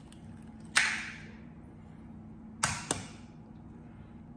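Eggs and eggshells handled over a glass mixing bowl: one sharp knock with a short rustling tail about a second in, then two quick clicks a moment apart just past the middle.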